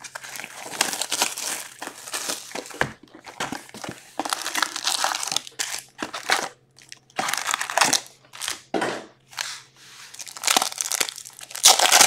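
Foil-wrapped hockey card packs crinkling and rustling as they are pulled out of a cardboard hobby box and gathered into a stack by hand, with scattered clicks of cardboard. The sound comes in uneven handling bursts and is loudest near the end.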